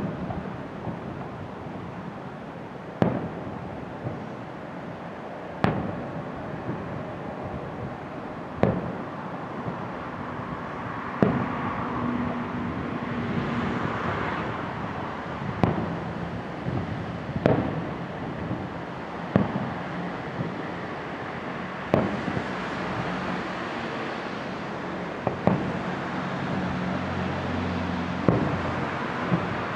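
Aerial firework shells bursting: about a dozen sharp bangs, one every two to three seconds, over a steady background rush.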